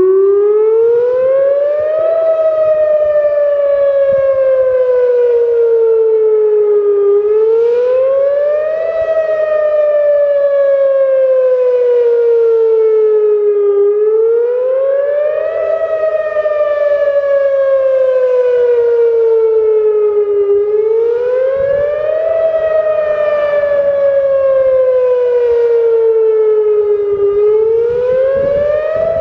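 Whelen WPS-2809 electronic outdoor warning siren sounding its wail tone as a scheduled test. The pitch rises quickly for about two seconds, then falls slowly for about five, over and over, roughly every seven seconds.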